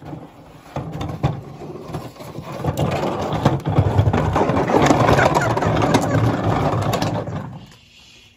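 A trash can being dragged across a concrete floor and driveway: a loud, rough scraping that builds after a second or two and stops shortly before the end.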